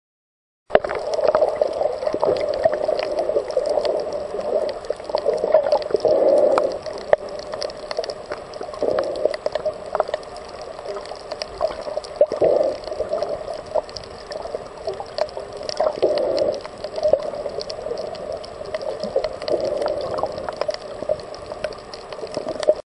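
Muffled underwater water noise picked up by a camera below the surface: continuous gurgling and sloshing with scattered small clicks and crackles, swelling and fading every few seconds. It starts and stops abruptly.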